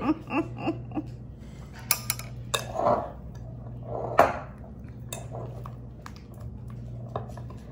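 Metal spoon and rubber spatula clinking and scraping against a glass mixing bowl as thick pudding filling is scooped out, with a handful of sharp clinks, the loudest about four seconds in.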